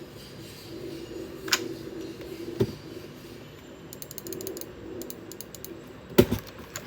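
Typing on a custom mechanical keyboard, a CIY Tester68 kit with lubed Huano red linear switches, lubed stabilizers and foam dampening. A few separate keystrokes, then a quick run of light clicks in the middle, and a deeper, louder stroke near the end.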